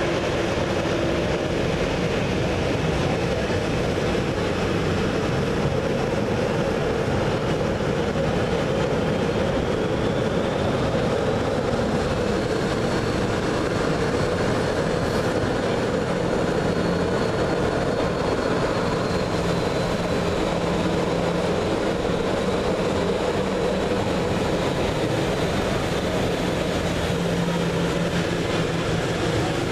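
Jet engines of Boeing 737 airliners at taxi idle, a steady noise with a faint high whine, heard through a terminal window.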